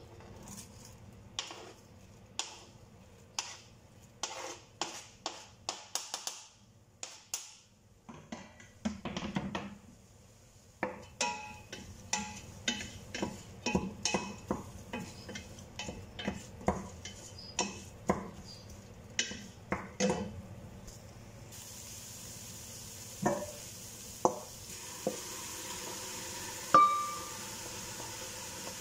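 Chopped red onion scraped from a plastic cutting board into a stainless steel pot and stirred with a wooden spoon: a long run of taps, knocks and scrapes against the pot. About two-thirds of the way through, a steady sizzle of frying sets in under the stirring, and near the end comes one sharp metallic clink.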